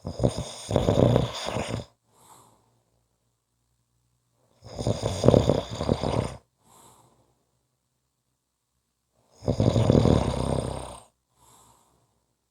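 A person snoring: three loud, rasping snores about four to five seconds apart, each followed by a short faint breath.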